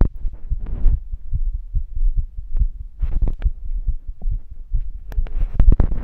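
Close-up recording of a heartbeat: repeated low thumps, overlaid with irregular bursts of scraping, rustling noise from movement against the microphone.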